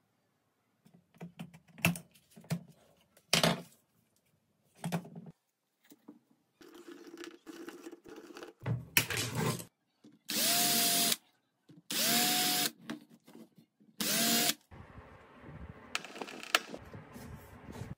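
Power drill run in three short bursts, each spinning up quickly to a steady whine, with scattered clicks and knocks of tools and wood being handled before them.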